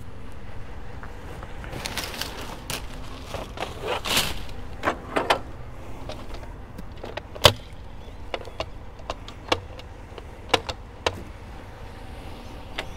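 A step ladder and other items in a curbside trash pile being handled and pulled out: scraping and rustling, with scattered sharp clicks and knocks, the loudest a single sharp knock about seven and a half seconds in.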